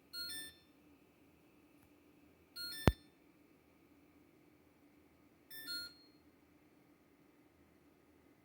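LG LFX25960ST refrigerator beeping on its own: three short two-note electronic chirps about every two and a half to three seconds, with a sharp click right after the second. The beeping is a fault that comes with its LED lights flashing.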